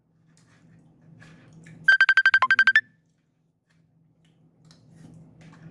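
Mobile phone ringing with an incoming call: a rapid run of about a dozen short high beeps lasting under a second, about two seconds in, one cycle of a ringtone that repeats every four seconds or so.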